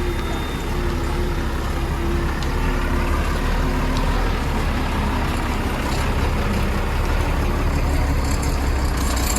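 Heavy diesel engine running steadily with a deep, even rumble.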